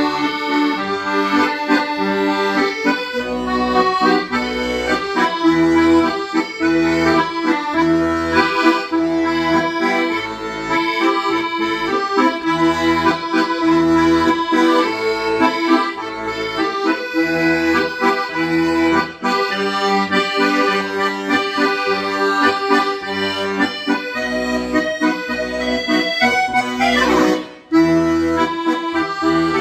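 Accordion playing a melody in chords over steady, regularly spaced bass notes. Near the end there is a short falling run, then a brief break before the tune resumes.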